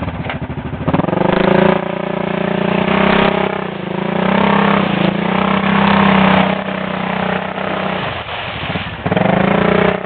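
Arctic Cat 650 ATV engine revving hard in repeated surges: the pitch climbs and falls back several times, about a second in, around three, five and six seconds, and again near the end, as the quad is pushed through ice and mud.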